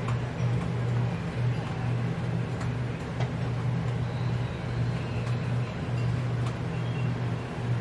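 Steady low machine hum, with a few faint light clicks.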